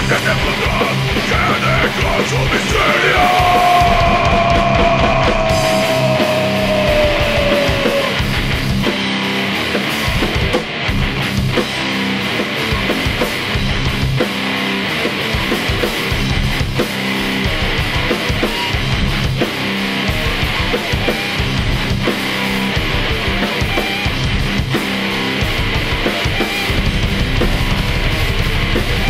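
Heavy metal band playing: distorted guitars and drums, dense and loud, with one long held note that slides slowly down in pitch a few seconds in.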